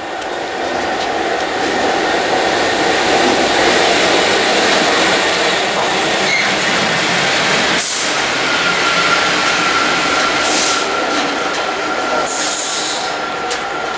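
Two Class 66 diesel-electric locomotives, each with a two-stroke V12 engine, running light engine through the station at speed. Their engine and wheel noise builds over the first couple of seconds and stays heavy and steady. A steady high whine comes in about halfway through.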